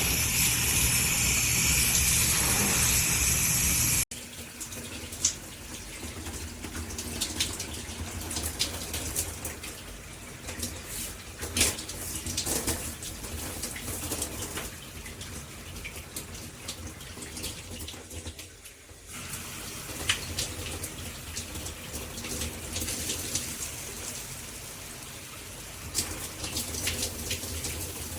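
Handheld shower head spraying water into a bathtub, a loud hiss that stops abruptly about four seconds in. After that, quieter water running and splashing in the tub with scattered clicks and taps.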